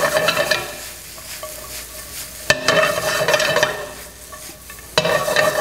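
Green beans, walnuts and jalapeño sizzling in butter in a stainless steel sauté pan as it is tossed over the flame. The sizzle surges suddenly three times, about two and a half seconds apart, each time fading off.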